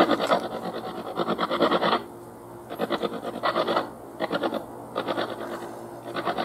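Dry grass and vegetation rustling and scraping as someone pushes through it, a continuous rasp for about two seconds, then a run of short rustles roughly every half second.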